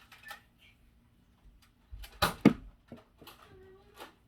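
A sharp, loud clack about two seconds in, with a few fainter clicks around it and a brief faint pitched sound near the end.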